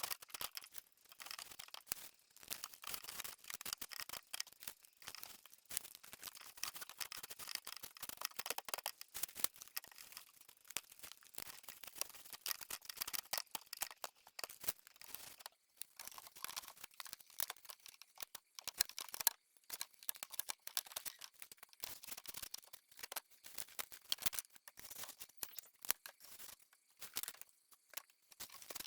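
Dense, irregular crackling and rustling of dry material, many small snaps close together.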